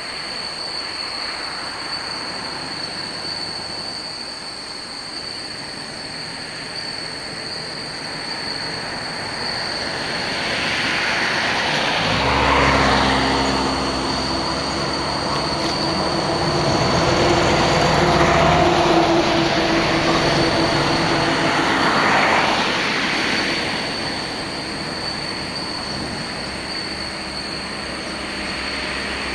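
Jet engines of a Boeing 747-400 freighter spooling up for takeoff, a deep rumble and jet roar that swells in the middle and then eases somewhat as the takeoff roll begins.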